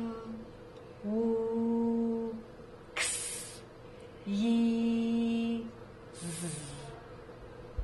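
A woman's voice saying isolated English phonics sounds one at a time, with short pauses between them: a held /w/, a short hissy /ks/ for X, a held /y/, then a buzzing /z/.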